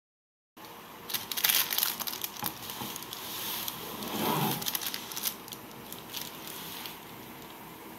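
Baking parchment crinkling and rustling as a sheet of freshly baked buns resting on it is handled. It starts about half a second in as a run of sharp crackles.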